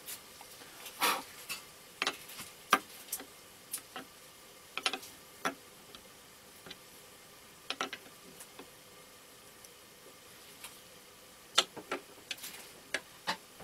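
Irregular small clicks and short scrapes of pliers and a wrench working a nylon nut gently on a plastic-and-metal assembly.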